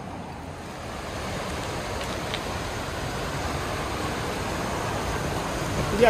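A river flowing over rocks: a steady rushing of water that grows a little louder over the first second or so.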